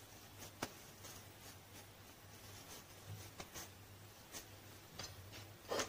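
Faint handling sounds of hands squeezing water out of a soaked bread slice, a few soft clicks and small squishes, with one brief louder handling noise near the end, over a low steady hum.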